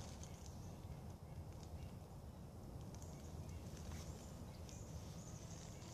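Outdoor woodland ambience: a steady low rumble with faint, scattered high chirps and ticks.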